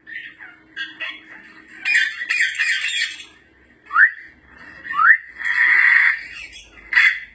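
African grey parrot calling: harsh, noisy calls broken by two short rising whistles about a second apart, midway through.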